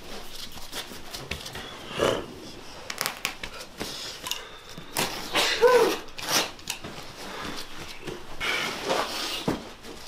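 Cut carpet and its padding being rolled up and handled on the floor: scraping and rustling with a few knocks, and a short grunt of effort about halfway through.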